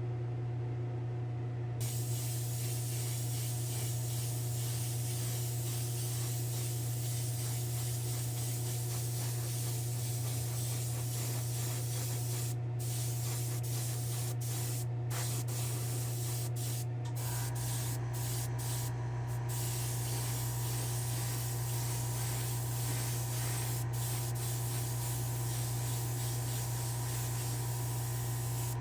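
Airbrush spraying paint in a long hiss that starts about two seconds in and is broken by several brief pauses as the trigger is let off. A steady low machine hum runs underneath, and a second, higher hum joins in about halfway through.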